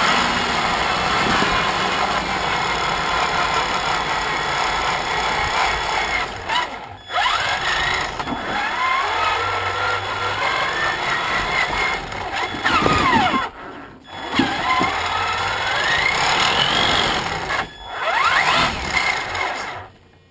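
Traxxas Summit RC truck's electric motor and geared drivetrain whining under throttle, the pitch rising and falling with speed. The whine cuts out sharply several times as the throttle is let off, then picks up again.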